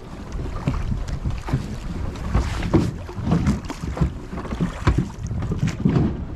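Gusty wind buffeting the microphone on a rowed boat on a fast river, with river water splashing against the hull. The level swells and drops irregularly.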